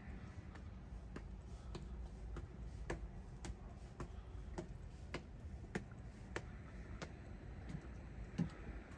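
Footsteps on hard stone steps and floor tiles: sharp shoe clicks at an even walking pace, a little under two a second, over a low steady rumble.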